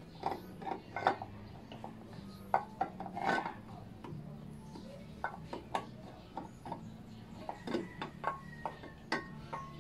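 Irregular metallic clicks and clinks of hands and tools working on a motorcycle's air-cooled engine head, as parts are loosened and handled for a valve-clearance tune-up.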